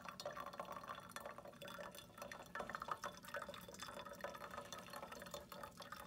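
A thin stream of hot water from a gooseneck kettle pouring in circles onto wet coffee grounds in a stainless steel micro-mesh pour-over filter: a faint, steady trickle.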